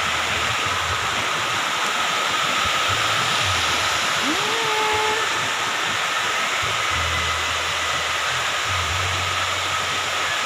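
Shallow stream rushing over rocks and down a small waterfall cascade: a steady, loud, even rush of water.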